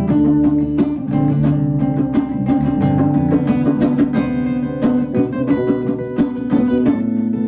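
Live band playing an instrumental passage: guitar to the fore, over bass and drums.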